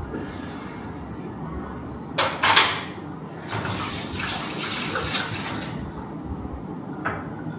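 Kitchen tap running into a sink for about three seconds. A couple of sharp knocks of dishes being handled at the sink come just before it, and another short knock comes near the end.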